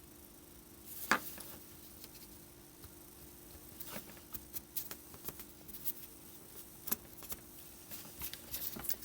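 Small clicks and taps of parts and tools being handled on a workbench, one louder knock about a second in and a run of quicker ticks in the second half, over a steady low hum.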